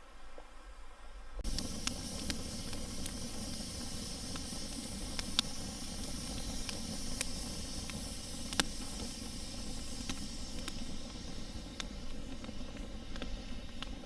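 Small wood campfire burning, a steady hiss with scattered sharp pops and crackles. It starts abruptly about a second and a half in.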